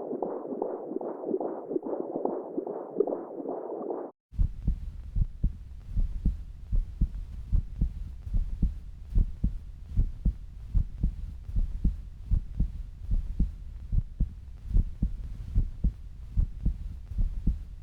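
Fetal heartbeat on a Doppler monitor: a fast, whooshing pulse at about two and a half beats a second, cutting off about four seconds in. Then a slower adult heartbeat follows, low lub-dub thumps about once a second.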